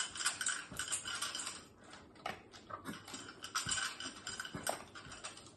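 Dog nosing at a metal muffin-tin treat puzzle on a tile floor: irregular metallic clinks and scrapes as the tin and the balls in its cups are pushed about, with the dog sniffing.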